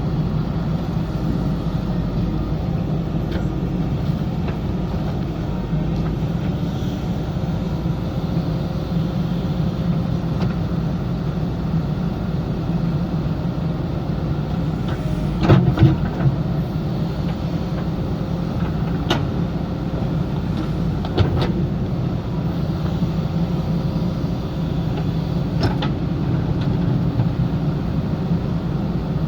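JCB backhoe loader's diesel engine running steadily at work, with a few sharp knocks, the loudest about halfway through.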